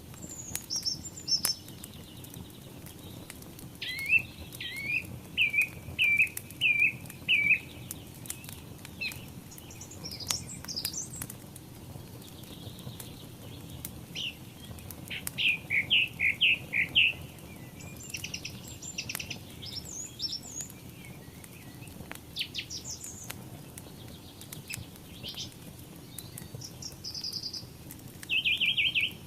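Wood fire in a fireplace crackling with scattered sharp pops over a steady low rush, while songbirds sing: repeated runs of short chirping notes and high thin whistles.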